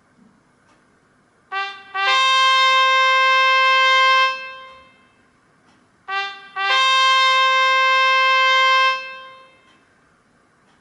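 Nokia Asha 302 stock ringtone with a brass-like, trumpet-style synthesized sound. It plays two quick short notes and then one long held higher note that fades out, and the whole figure sounds twice.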